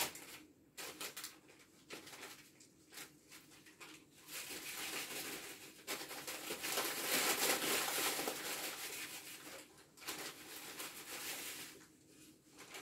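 Paper bag of dried marigold (calendula) flowers crinkling and rustling as it is handled and opened, in uneven bursts.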